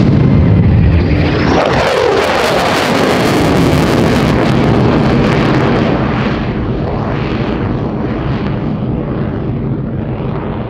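Lockheed Martin F-35A Lightning II's single F135 turbofan, loud as the jet passes and pulls up into a steep climb. Its pitch sweeps downward about two seconds in, then it goes on as a ragged, crackling jet noise that slowly fades as the aircraft climbs away.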